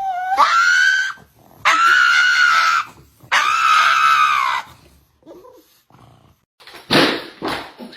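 An animal screaming three times in long, high cries of about a second each, the first rising in pitch at its start; a short noisy burst follows near the end.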